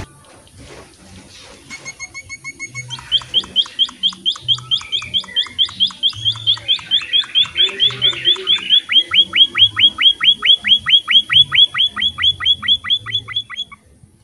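Emprit finch calling in a long, fast run of downslurred chirps, about five a second, after a few short clear notes. The run starts about three seconds in and stops abruptly near the end.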